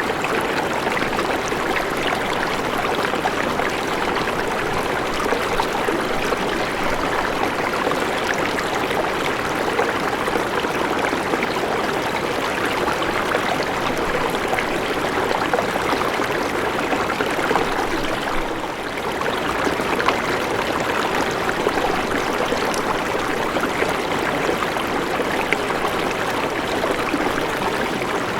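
A river flowing: steady water noise, with a brief slight dip in level about two-thirds of the way in.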